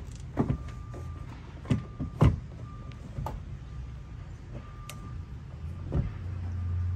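Hard plastic knocks and clicks as a marine binnacle shift/throttle control box is handled and set down onto a helm console with its cables, the loudest a little over two seconds in. A low steady hum comes in near the end.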